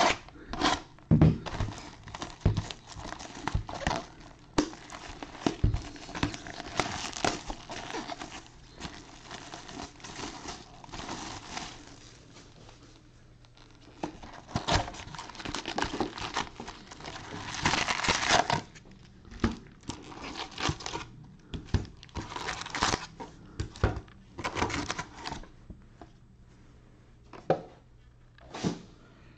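Plastic shrink wrap crinkling and tearing as it is stripped off a sealed cardboard box of trading cards, then the box being opened and the foil card packs handled, in irregular crackly bursts that thin to a few scattered clicks near the end.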